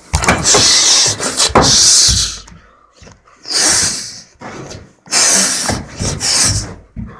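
A cat scrabbling and scratching with its claws in several long rasping bursts, with knocks and bumps among them.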